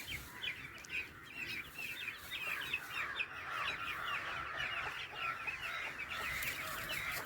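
A flock of week-old chicks peeping, many short high cheeps overlapping without a break.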